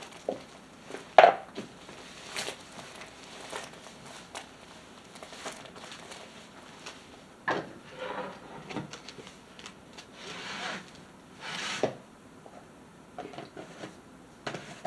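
Handling noise as a diamond painting canvas is rolled up and put into a storage tube: rustling and rubbing swishes with a few sharp knocks, the loudest about a second in.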